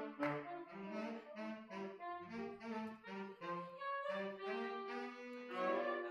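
Saxophone quartet playing in harmony: the lower parts move in short, separate notes for the first few seconds, then the voices settle into longer held chords.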